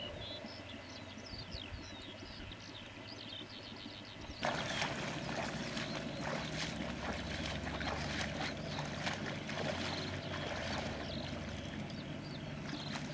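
A low engine hum with birds chirping. About four seconds in, loud splashing and sloshing of water begins and goes on.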